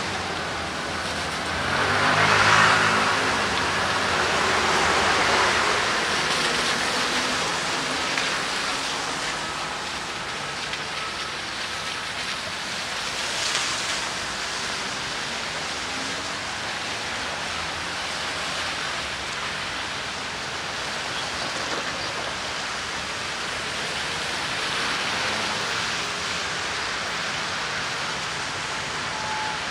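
Steady rain hiss with street traffic on wet roads; a vehicle passes a couple of seconds in, the loudest moment, and a shorter swell of tyre noise comes again near the middle.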